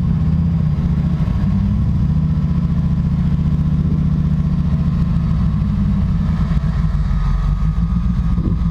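Land Rover Discovery's 3.9 V8 petrol engine idling steadily.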